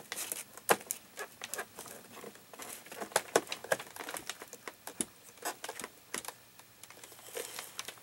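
Irregular small clicks, ticks and rustles of a plastic multi-pin wiring connector and its cable bundle being handled and plugged back in inside an opened computer chassis.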